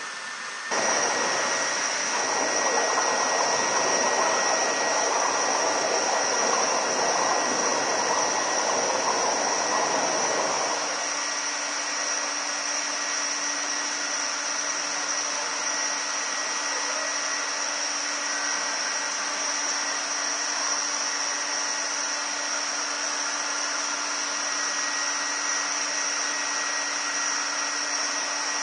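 Small electric appliances running together in a steady mechanical drone with a high whine, switching on about a second in. About ten seconds in, the rushing part drops away, leaving the whine and a low steady hum.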